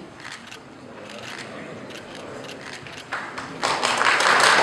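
Crowd applauding, starting about three seconds in and quickly becoming loud, after a stretch of faint room murmur with scattered light clicks.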